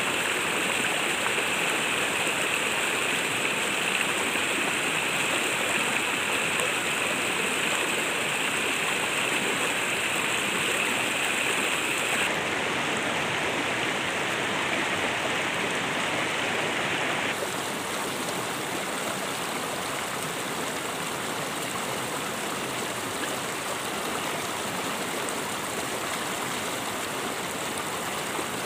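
A shallow stream running over rocks and gravel: a steady rushing of water. A thin high hiss above it stops about twelve seconds in, and the whole sound drops a little in level a few seconds later.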